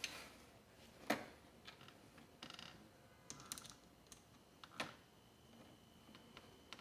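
Faint, scattered clicks and light taps of a screwdriver hand-driving small screws into a door's lockset strike plate. The most distinct clicks come about a second in and near five seconds.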